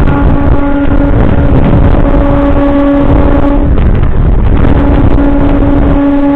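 MEMU electric train running with a loud, steady rumble. A steady humming tone over the rumble drops out for about a second midway, then returns.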